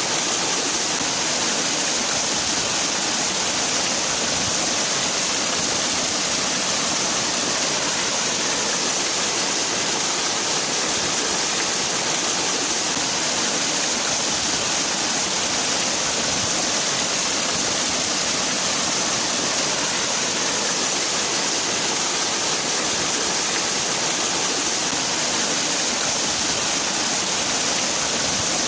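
Waterfall: water falling and splashing in a steady, unbroken rush with a strong hiss.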